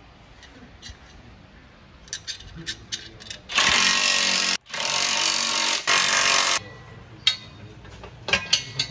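Cordless power tool running nuts down onto the new downpipe's studs in two loud bursts, about a second and then about two seconds, with short metallic clinks of the nuts and socket before and after.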